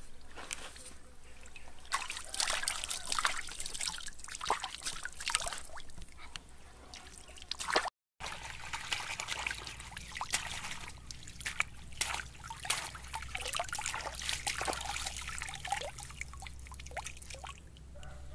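Pond water splashing and trickling in irregular bursts as a woven basket of vegetables is rinsed at the water's edge. There is a brief gap about eight seconds in, after which a steady low hum is added under the splashing.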